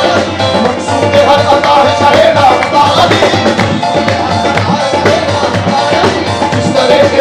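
Live qawwali: harmonium and tabla with rhythmic hand-clapping and voices singing.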